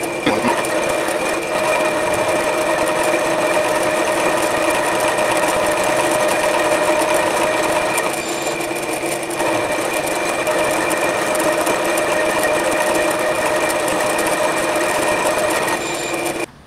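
Milling machine running steadily with a whine of several steady tones as an end mill cuts into a metal block. The sound cuts off suddenly near the end.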